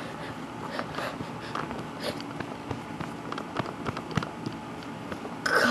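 Rustling and scattered small clicks of a camera rubbing against a cat's fur as the cat moves, with a louder short noise near the end.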